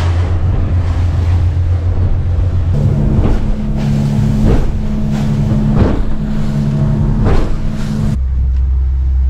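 A motorboat engine runs steadily under way, heard from inside the boat's cabin, its pitch shifting about three seconds in and again near the end. Several short slaps of water against the hull come through.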